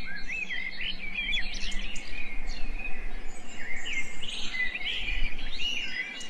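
Many small birds chirping and twittering, with dense overlapping calls, over a low steady hum that stops near the end.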